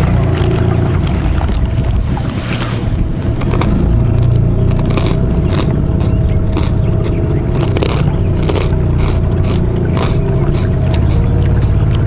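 A small boat's motor running steadily, with repeated short scrapes and knocks over it.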